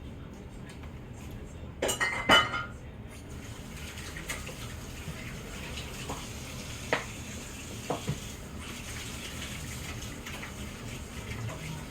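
Dishes and cutlery clinking at the table. There is a burst of clattering and ringing clinks about two seconds in, then a few single clinks spread through the rest.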